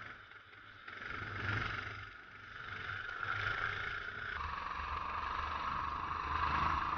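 Honda-engined endurance kart's engine running hard as the kart accelerates out of a corner, heard from the kart's own onboard camera; it gets louder about a second in.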